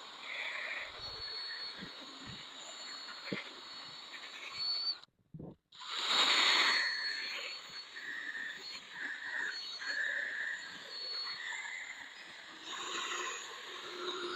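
Cutting compound being rubbed by hand onto a plastic headlight lens: irregular squeaky, scratchy rubbing strokes. The sound cuts out for about half a second around five seconds in, then comes back louder for a moment.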